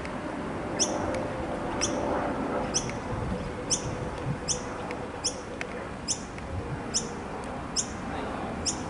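Airbus A320 climbing out overhead, its jet engines a steady even roar. Over it a short, high, falling chirp repeats about once a second.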